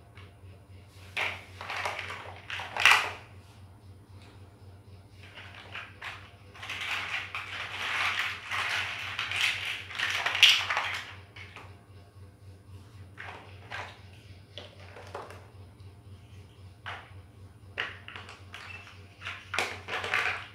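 Plastic toy building bricks clattering and clicking as hands sort through a loose pile and fit bricks onto the build. There are a few short clatters near the start, a longer spell of rattling through the pile in the middle, then scattered single clicks.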